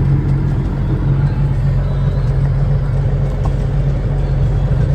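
Sugar beet hauling truck's engine running with a steady low drone.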